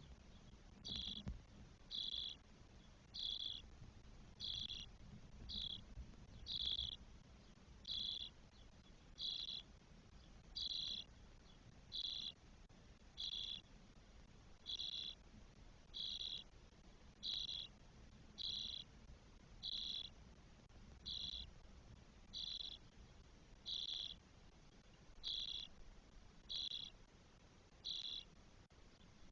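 Spotless starling nestlings calling from the nest: short raspy begging calls repeated at an even pace, about three every four seconds.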